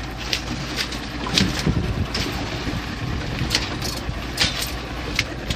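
Scattered sharp clicks and knocks as a rock lobster pot and the lobsters inside it are handled on the side of a boat, over a steady low rumble.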